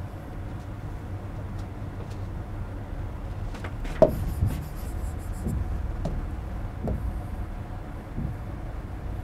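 Low steady rumble of room noise with scattered soft knocks, the sharpest about four seconds in, as a stylus is drawn and tapped across an interactive whiteboard.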